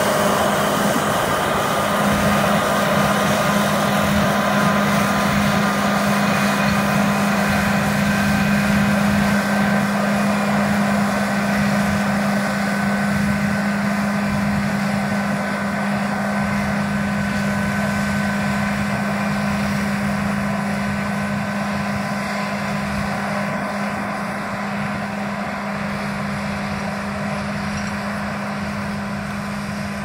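Claas Lexion 770 combine harvester running at work while cutting, a steady low drone with fainter high whines from the machinery. It fades gradually as the combine moves away, the whines dying out about halfway through.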